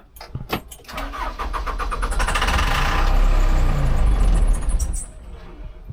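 Backhoe's diesel engine cranked over by its starter for about four seconds without firing, then the starter stops. It won't catch because no fuel is reaching it: the injector pump is bone dry, which the owners take as a sign that the fuel lift pump isn't pushing fuel up.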